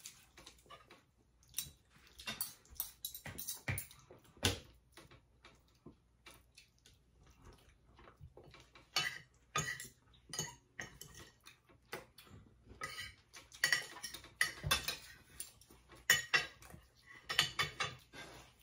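Metal spoons and forks clinking and scraping on plates during a meal, as scattered light clicks that bunch up a couple of seconds in and again over the last third.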